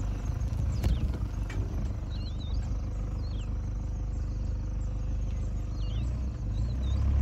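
Game-drive vehicle's engine idling with a steady low rumble, with a few short high chirps heard now and then over it.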